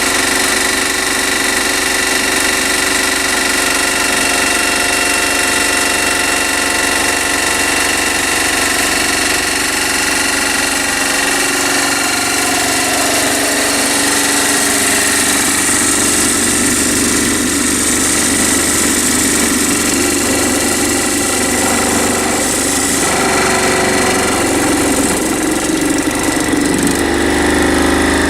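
Homemade vibrating tumbler driven by a washing machine motor, running steadily. The lower part of its sound shifts about halfway through and again near the end.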